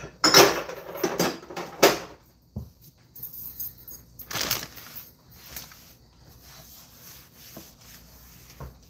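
Kitchen clean-up at the counter and sink: short bursts of rustling and clatter in the first two seconds, another about four and a half seconds in, then small scattered handling noises.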